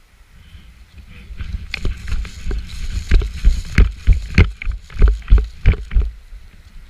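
A quick run of heavy thumps and sharp knocks, about three a second, building up over a second or so and stopping near the end.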